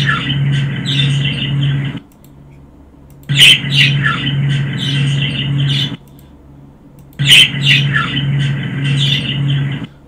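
Recorded budgerigar chatter played back through a speaker. The same short clip of chirps and squawks over a low pulsing hum repeats three times with brief gaps between, each repeat loudest at its start. The owner hears the words "ain't you talking to me" in the chatter and takes them for an entity's voice.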